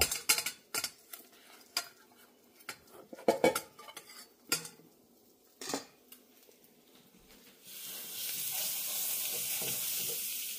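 A slotted spatula tapping and scraping against a stainless steel mixing bowl in a string of irregular clicks while bread soaks in the egg mixture. About eight seconds in, a steady sizzle starts as French toast fries in a pan.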